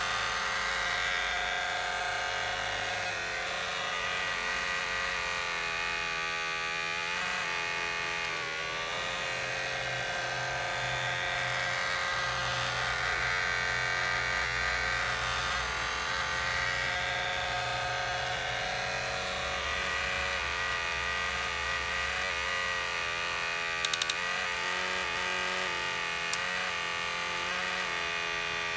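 Small electric gear motors of a Huina RC toy excavator whining as the boom, arm and bucket dig and the upper body swings, the pitch stepping up and down as different motors start and stop. A couple of short clicks come a few seconds before the end.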